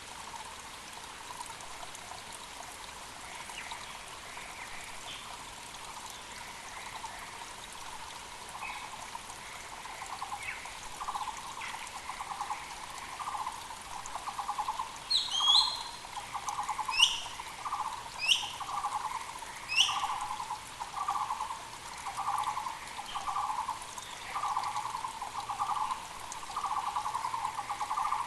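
Muller's barbet calling: a steady run of low, hollow pulsed notes about once a second that grows louder partway through. A few sharp, higher calls from another bird come in the middle, over the constant rush of a mountain stream.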